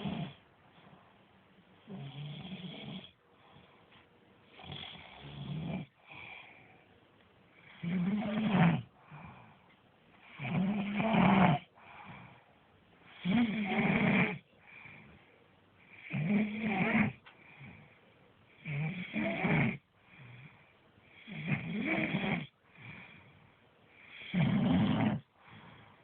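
Snoring in a slow, even rhythm: a snore about every two and a half to three seconds, each lasting about a second, with fainter sounds between.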